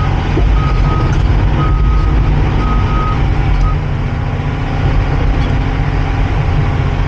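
Cat 349 excavator's diesel engine running under load with its travel alarm beeping about once a second as the tracks move, the beeping stopping a little past halfway while the engine keeps running.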